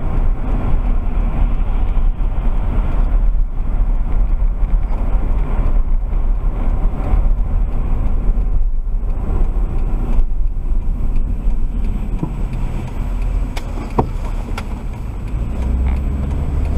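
Road and engine noise inside a moving car, a steady low rumble as picked up by a dashcam's built-in microphone, with a few sharp clicks near the end.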